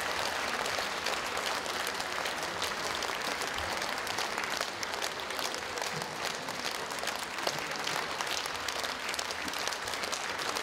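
Concert audience applauding, a dense steady clapping of many hands that neither builds nor fades.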